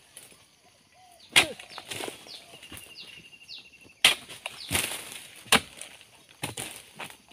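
Long-poled oil palm harvesting chisel (dodos) striking into the frond and fruit-bunch stalks of a young oil palm: sharp chopping impacts, one about a second in, then about five more in quick succession from about four seconds on. Birds chirp between the strikes.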